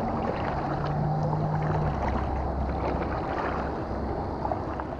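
Kayak paddle strokes in calm pond water: the blades dipping, splashing and dripping, with water crackling against the hull.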